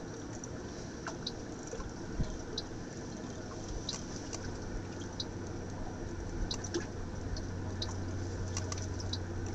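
Water sloshing and dripping with scattered faint ticks. A low steady hum comes in a few seconds in.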